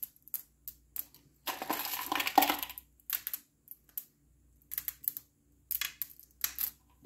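M&M candies clicking and rattling as a hand picks them from a bowl and drops and presses them onto blondie batter in a baking pan. It comes as a string of short clicks, with a longer rattle of a handful between about one and a half and three seconds in.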